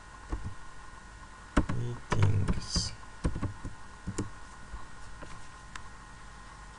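Computer keyboard being typed on: an irregular run of key clicks, bunched together about two seconds in, then sparser, over a faint steady electrical hum.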